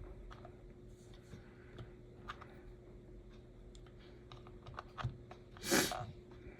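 Small, light clicks and taps of tiny plastic and metal slot-car chassis parts being handled and fitted by hand, over a faint steady hum. A brief louder noise comes near the end.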